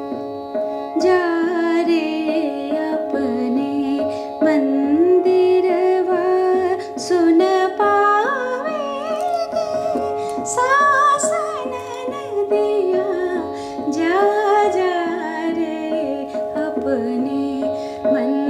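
A woman sings the sthayi of a chota khyal in Raag Bhimpalasi, tonic at C sharp. A steady tanpura drone sounds underneath and tabla keeps time in teentaal.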